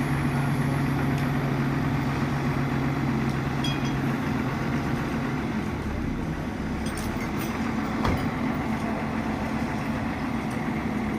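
Kato crane's diesel engine running steadily while it loads wood onto a truck. Its strongest low tone drops away about four seconds in. A few clicks and one sharper knock come about eight seconds in.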